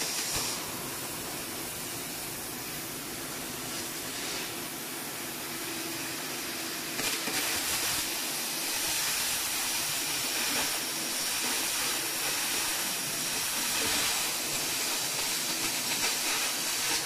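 Shielded metal arc (stick) welding: the electrode's arc sizzling steadily, a little louder from about seven seconds in.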